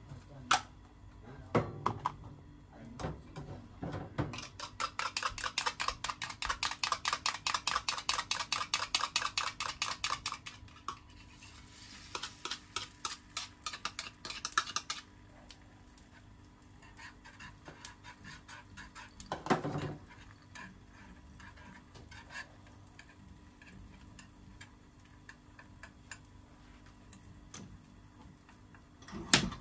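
Wire whisk beating eggs in a plastic bowl: a fast, steady clatter for about six seconds that then tapers off. Later come scattered light clinks of the whisk stirring the egg in a frying pan, with a single knock about two-thirds of the way through.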